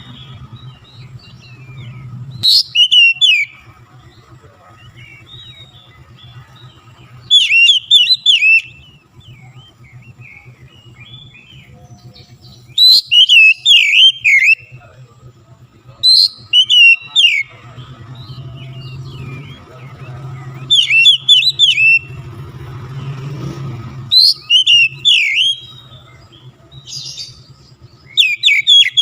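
Oriental magpie-robin (kacer) singing in loud bursts of rapid, high chirping whistles, a phrase of about a second every three to five seconds, over a faint low hum.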